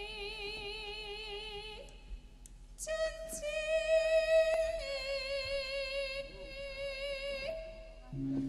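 Javanese female singer (pesinden) singing long held notes that waver with vibrato, in the music of a wayang kulit performance.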